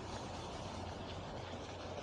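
Quiet, steady outdoor background noise: an even hiss over a constant low hum, with no distinct events.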